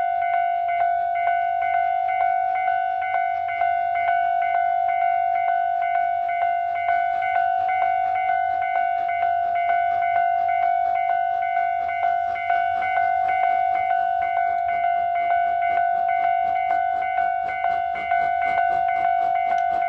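Japanese level-crossing warning bell ringing as a steady, evenly repeated ding. Beneath it the approaching C11 tank steam locomotive's running sound builds faintly in the second half.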